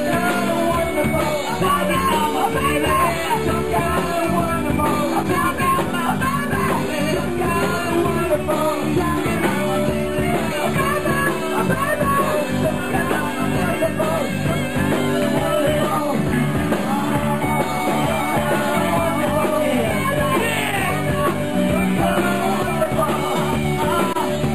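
Live rock band playing a loud, steady instrumental stretch of a rock song, with electric guitar over bass and drums.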